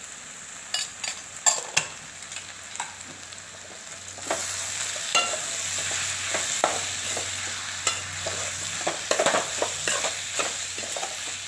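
Spatula scraping and knocking against a large metal kadai while stirring shredded vegetables frying in oil, with a sizzle underneath. At first only a few scattered knocks; about four seconds in the stirring turns brisk and continuous and the sizzle gets louder.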